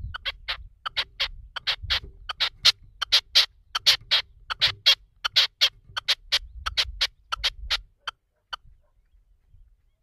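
Red-legged partridge decoy (reclamo) calling from its cage: a long run of short, sharp notes, about three to four a second. It is loudest in the middle, then thins to two last spaced notes and stops about eight seconds in.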